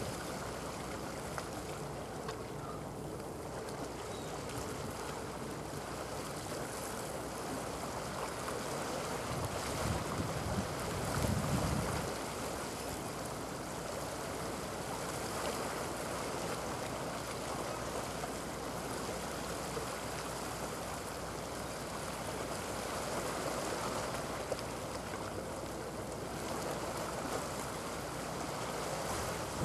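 Steady wash of sea water on the shore with wind noise on the microphone; a stronger gust buffets the microphone about ten seconds in.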